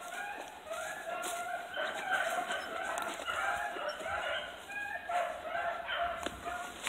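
A pack of rabbit hounds baying together on a rabbit's track: a steady run of overlapping drawn-out bawls from several dogs at once.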